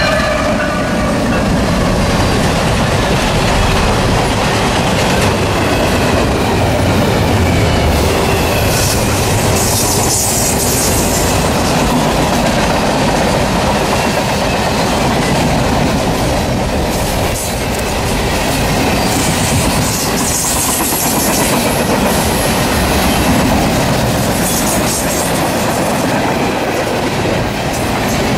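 Freight train passing close at speed: CSX diesel locomotives go by, then a long string of Tropicana refrigerated boxcars, their wheels clattering over the rail joints in a loud, steady rumble. The last of a horn blast fades right at the start, and brief high-pitched wheel squeals come about ten seconds in and again around twenty seconds.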